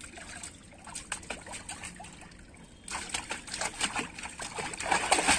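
Pool water in an inflatable paddling pool trickling and sloshing, then splashing more loudly and busily from about three seconds in as a man and a German Shepherd puppy move about in it.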